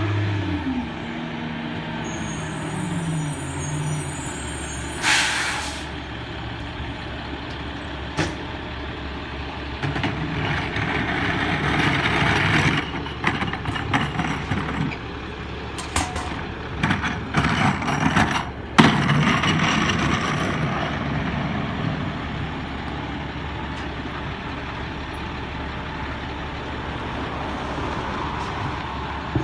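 Garbage truck's diesel engine slowing down as the truck comes to a stop, with a short air-brake hiss about five seconds in. Through the middle comes a run of hissing and knocking bursts, then the engine idles steadily.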